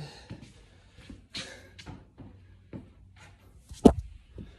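Scattered light knocks and rustles of handling work, with one sharp knock about four seconds in.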